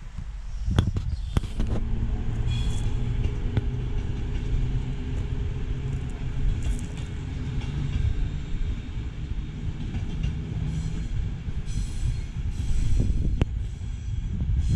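Passenger train running through the station yard: a steady low rumble of wheels on rail, with a thin high squeal in the last few seconds.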